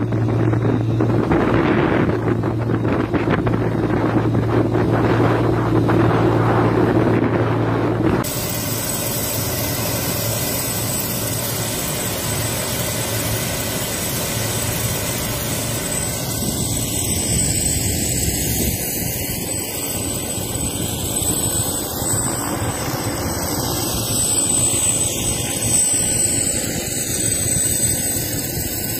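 A small boat's engine hums steadily under wind rush on the microphone. About eight seconds in, it cuts to a steady rushing with a thin, high, steady whine, typical of a small helicopter's turbine engine running.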